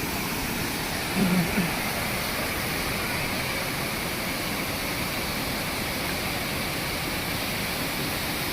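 Floodwater of the overflowing Penna River dam rushing in heavy, steady flow. A short low sound comes through about a second in.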